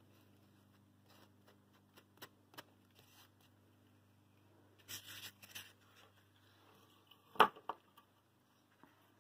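Quiet handling of a burlap ribbon and a foam block on a tabletop: a few light taps, a short rustle of the burlap about five seconds in, then one sharp knock as the foam block is lifted and turned. A low steady hum sits underneath.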